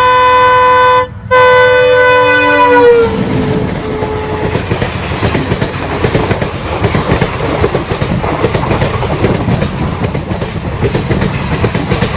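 Horn of an ALCO WDM 3A diesel locomotive, blown in two blasts with a short break about a second in, its pitch sagging as it stops about three seconds in. Then the train rolls by with a steady rumble and wheels clattering over the rail joints.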